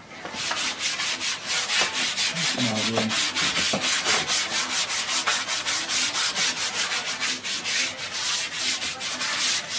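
Rapid back-and-forth strokes rubbing linseed oil into a stretched canvas, a dry scrubbing swish repeating about four to five times a second.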